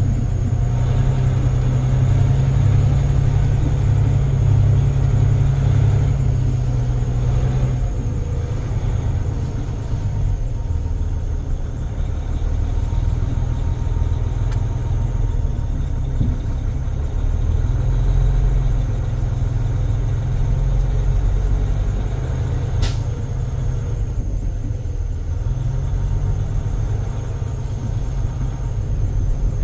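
Caterpillar C13 inline-six diesel of a Sterling L9500 dump truck running as the truck is driven slowly, heard from inside the cab as a deep rumble. The rumble swells and eases a few times, with a single sharp click about two-thirds through.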